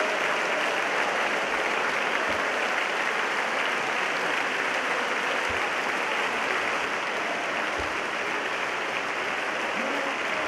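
A large crowd of deputies applauding, a dense, steady clapping that holds at the same level throughout.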